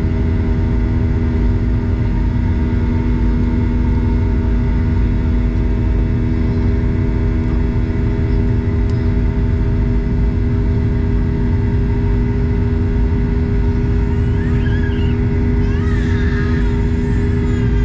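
Jet airliner cabin noise during the climb after takeoff: the Boeing 737-800's CFM56-7B turbofan engines running at climb power, heard from inside the cabin as a steady roar with a low, even hum. Near the end a few faint wavering higher sounds rise over it.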